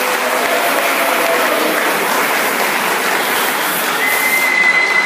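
Audience applauding steadily in a large hall, welcoming a boxer; a thin steady high tone comes in about four seconds in.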